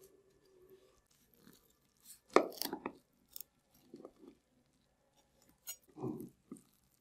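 A knife cutting through a baked bread, egg and cheese casserole, its browned crust crunching in short bursts. The loudest crunch comes about two and a half seconds in, with another near the end as the cut piece is pulled away.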